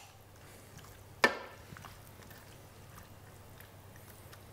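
A single sharp metallic clink of a metal utensil against a stainless steel pot about a second in, with a few faint ticks of slow stirring in a thick stew otherwise.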